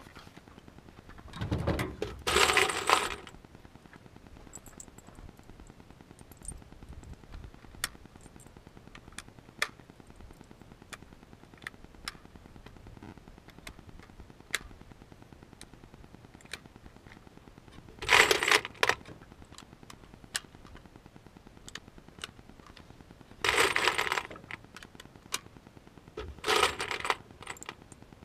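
Rifle cartridges being pressed one at a time into an AR-15 magazine: a sparse series of small metallic clicks. A few louder bursts of handling noise, each about a second long, come near the start and three times in the last ten seconds.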